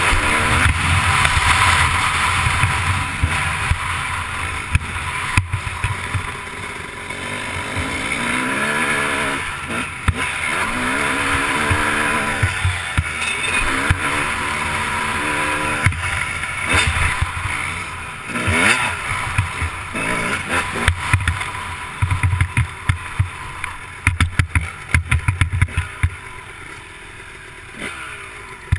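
2001 Suzuki RM250 single-cylinder two-stroke motocross engine revving hard and falling off through the gears. From about 22 seconds there are bursts of sharp knocks and rattles, and near the end the level drops as the bike slows.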